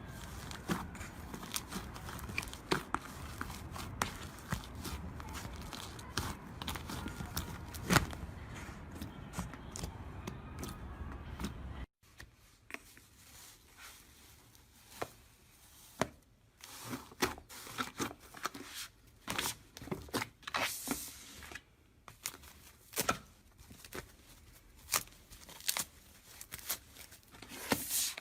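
Slime being squeezed and poked by hand, giving sticky crackling, clicking and popping. Before halfway there is a steady hiss under the crackles; then it drops away, leaving separate small pops.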